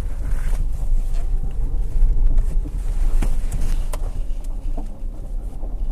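2016 Subaru Forester's 2.5-litre boxer four-cylinder running at low revs as the car backs slowly over gravel, with a few sharp clicks.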